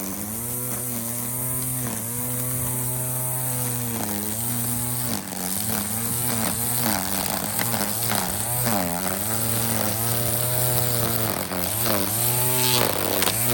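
Cordless battery-powered string trimmer running, its motor whine dipping in pitch now and then under load and picking back up.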